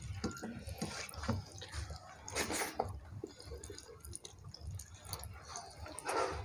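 Eating by hand: fingers mixing soft khichuri on plates and mouths chewing, making scattered small clicks and smacks.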